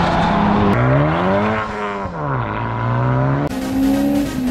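Car engine accelerating in a string of short driving clips: the pitch climbs steadily, drops back as the revs fall, then holds steady. The sound changes abruptly twice where one clip cuts to the next.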